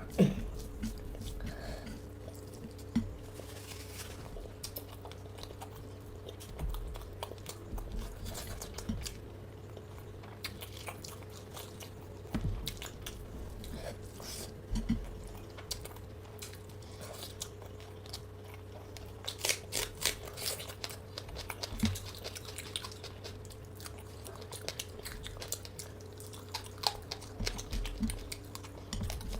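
A person chewing and biting into crunchy fried food, close-up, with irregular crunches and mouth clicks throughout, over a low steady hum.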